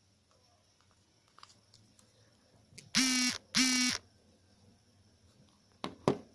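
Alarm sounding two short, loud buzzing beeps in quick succession, followed by a couple of sharp clicks near the end.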